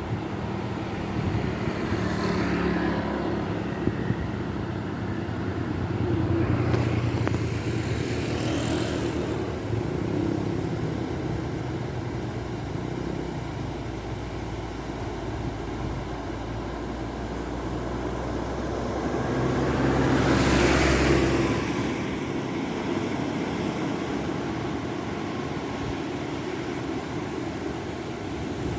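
Motor engines running steadily, with several passing louder and fading again, the loudest pass about two-thirds of the way through.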